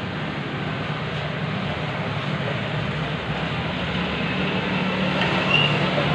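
Steady low mechanical drone with a broad background rush, with a brief high squeak or chirp about five and a half seconds in.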